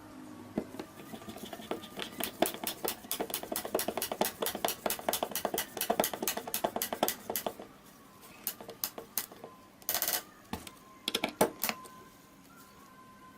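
A fast run of sharp clicks, several a second, for about six seconds, then a few scattered knocks and a short burst of noise about ten seconds in: hand work with tools or small parts.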